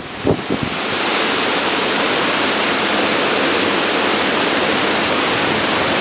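Squall-line storm: heavy wind-driven rain in a steady, loud hiss, with wind gusts buffeting the microphone in the first half-second or so.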